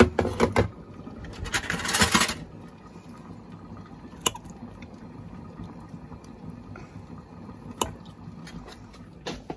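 A metal fork clinking and scraping against a bowl: a rough scrape about two seconds in, then a few sharp single clinks a few seconds apart.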